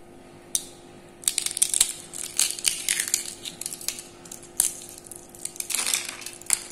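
Crisp fried thattai rice crackers being broken and crumbled by hand over a steel plate: an irregular run of sharp crackles and snaps, starting about half a second in, with broken pieces dropping onto the plate.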